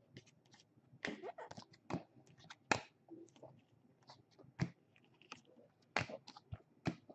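Trading cards being handled and flipped through by hand: irregular soft clicks and rustles of card stock, a few sharper snaps among them.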